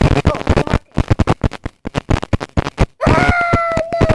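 A boy's voice making rapid, choppy vocal sounds, then about three seconds in breaking into a sustained high-pitched scream that falls slightly in pitch.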